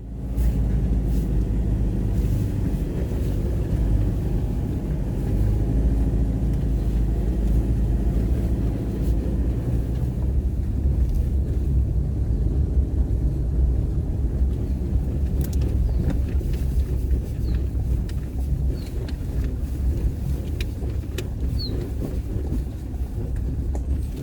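Car engine running with a steady low rumble and road noise, driving on a steep, rutted track, with occasional knocks and rattles.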